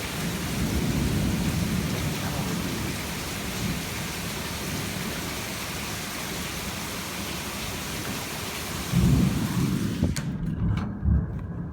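Heavy rain pouring steadily during a thunderstorm, with low thunder rumbling under it and a louder low rumble about nine seconds in. Near the end the rain noise cuts off suddenly and a few sharp knocks and clicks follow.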